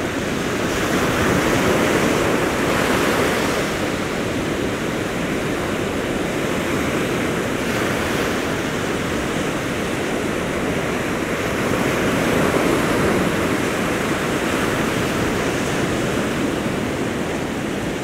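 Ocean surf breaking and washing up a sandy beach: a steady rushing that swells louder a second or two in and again about twelve seconds in.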